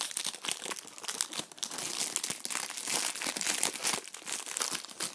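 Clear plastic shrink wrap being peeled and torn off a small cardboard box: dense, irregular crinkling and crackling throughout.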